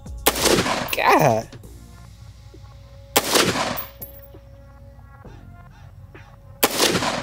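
Three shots from an AR pistol, about three seconds apart. Each is a sharp, loud blast with a short ringing tail, with heavy concussion from the short barrel.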